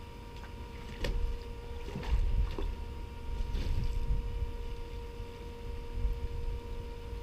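Small engine-driven water pump running steadily with a high hum, over rushing water and low rumble, with a few sharp knocks, the loudest about a second and two seconds in.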